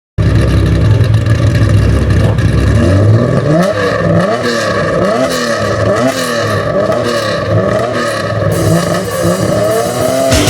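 Nissan Skyline KPGC10 GT-R's S20 twin-cam straight-six breathing through a Power Craft exhaust. It idles steadily for about three seconds, then is blipped repeatedly, about three quick revs every two seconds, each rising and falling in pitch.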